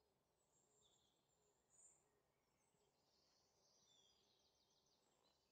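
Near silence, with faint high chirps and one short rapid trill over a low hiss.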